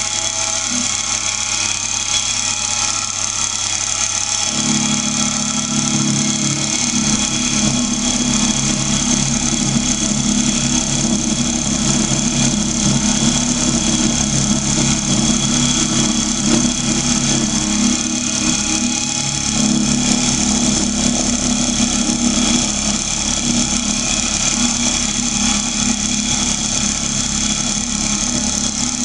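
Drill press running steadily while it is used as a milling machine, its motor hum mixed with a high hiss; about four seconds in a lower, rougher layer joins and stays, as the milling cutter works the metal.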